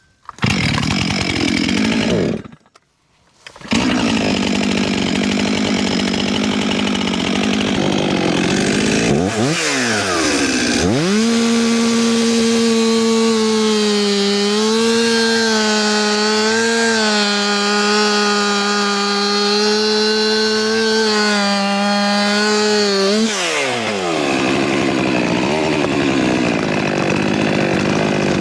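Gas chainsaw running hard through a felling cut, held at high revs for about twelve seconds with its pitch wavering slightly under load, then dropping back toward idle. The sound cuts out for about a second near the start.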